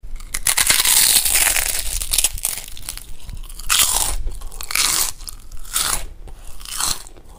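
Close, loud crunching and chewing of food, coming as irregular bites of about half a second to a second each.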